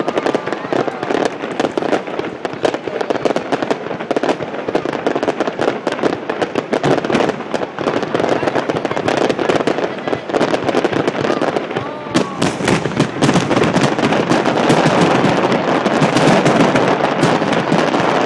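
Fireworks starmine barrage: a rapid, unbroken stream of bursts and crackling that grows louder over the last few seconds, with two short whistling glides, one at the start and one about twelve seconds in.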